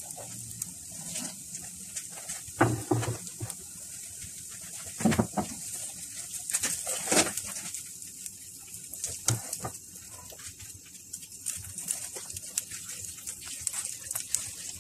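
Masala-coated eggplant slices sizzling in shallow oil in a nonstick pan: a steady high hiss with scattered crackles. A few short, louder low sounds come about three, five and seven seconds in.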